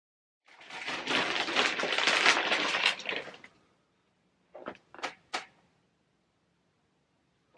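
Plastic sheeting crinkling and rustling for about three seconds as it is pulled back off a fermentation bin of red grape must, followed by three short sharp sounds in quick succession.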